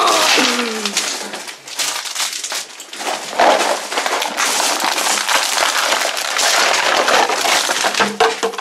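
Plastic candy wrappers and packaging crinkling and crackling as they are handled, in dense, irregular rustles.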